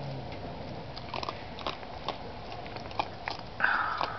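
Raccoons chewing and crunching cat food close by, a scatter of small irregular crunches and clicks. Near the end comes a short, louder burst of rushing noise.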